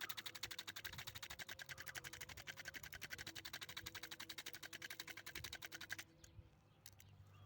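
Spinning fishing reel being cranked fast to spool line onto it, giving a rapid even clicking of about ten clicks a second. The clicking stops abruptly about six seconds in as the winding stops.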